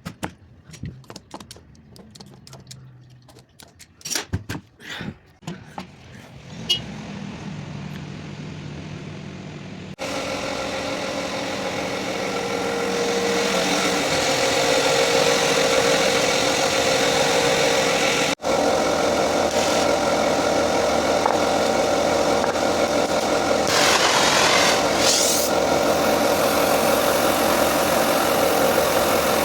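A few seconds of scattered clicks and knocks, then a car engine running steadily at idle.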